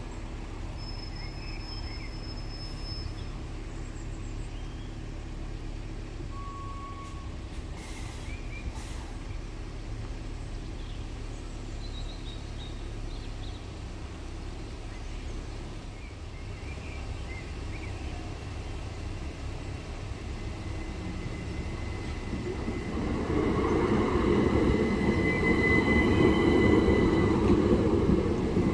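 Two coupled Southeastern Class 377 Electrostar electric trains approaching and passing over the level crossing. After a low steady rumble, their running noise rises from about two-thirds of the way in and is loud near the end, with a thin high tone over it.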